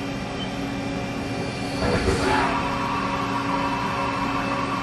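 Haas trunnion rotary table tilting its platter under servo power: a steady electric hum, joined about two seconds in by a steady higher motor whine.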